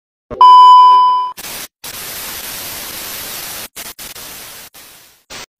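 TV colour-bar test-pattern sound effect: a loud steady high beep lasting about a second, then the hiss of TV static with a few brief dropouts, fading out near the end.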